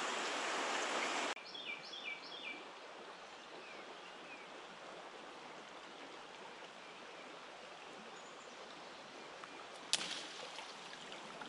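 Creek running high after rain, a steady rush of flowing water that drops suddenly to a quieter flow about a second in. A small bird chirps in three short groups just after the drop, and there is one sharp click about ten seconds in.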